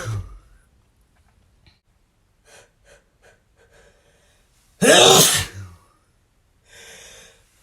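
A man sneezing: the tail of one sneeze at the start, a few short quiet breaths, then one loud full sneeze about five seconds in, followed near the end by a drawn-in breath as the next sneeze builds.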